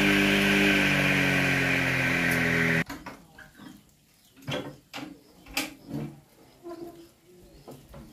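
Background music with sustained notes that cuts off abruptly about three seconds in, followed by quieter ambient farm sound: a few sharp knocks and faint short animal calls.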